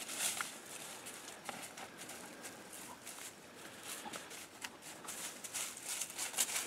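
Footsteps rustling and crunching through dry matted grass and dead leaves, in short irregular steps.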